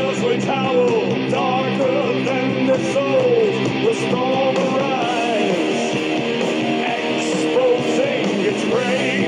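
A punk rock recording playing: electric guitars and drums, with a wavering, bending melody line over the band.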